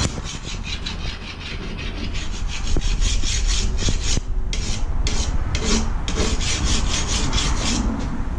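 Hand file rasping back and forth along the edge of a steel lawn mower blade in quick strokes, about five a second, with a short pause a little past the middle. The blade is dull and is being sharpened.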